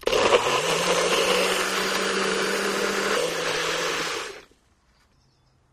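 Countertop blender running at full speed, blending a thick mix of ice cream, milk and waffle cone pieces, for about four seconds before it cuts off.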